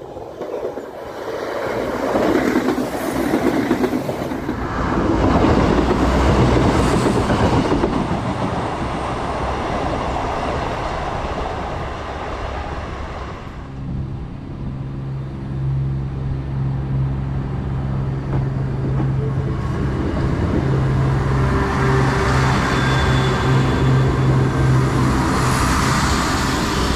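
A diesel multiple-unit passenger train approaches and runs past a level crossing in a swelling rush of wheel and engine noise. After a sudden change about halfway, a second diesel multiple unit passes close by with a steady low engine drone and wheel noise that grows louder near the end.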